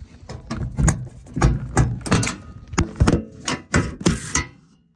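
Phone handling noise: a string of irregular knocks and thumps, about two a second, as the phone is jostled about, dying away near the end.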